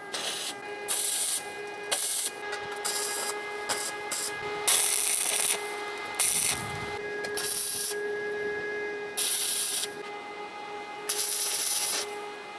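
Electric arc welding in short bursts of hiss, each a second or less and about ten in all, starting and stopping abruptly: tack-welding the corners of a steel square-tube frame. A steady hum runs underneath.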